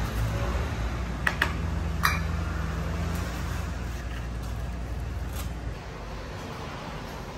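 Steady low machine hum, with three light metallic clinks about a second or two in as aluminium egg-tart tins and the tray are handled. The hum drops away near the end.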